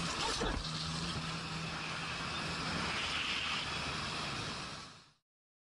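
Wind rushing over the microphone of a motorcycle riding at freeway speed, with the bike's engine heard as a steady low hum. There is a brief thump about half a second in, and the sound fades out about five seconds in.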